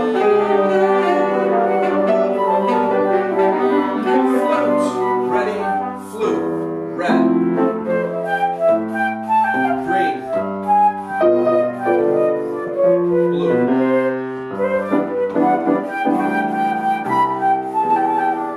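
Music: wind and brass instruments with piano, holding chords that change every second or so.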